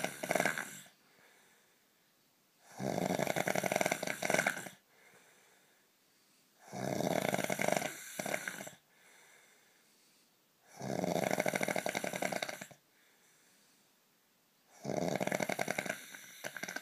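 Heavy snoring: a long snore about every four seconds, each lasting about two seconds, with a faint breath out in the quiet gaps between.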